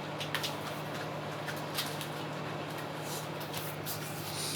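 Microwave oven running with a steady low hum and a few faint clicks. The oven runs but leaves the water cold and does not stop at the end of its set time, so it is not heating.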